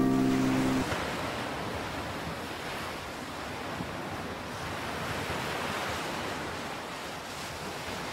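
Sea surf washing on a beach, a steady rushing with no tones that swells a little about halfway through. The last chord of a guitar-backed music track breaks off just under a second in.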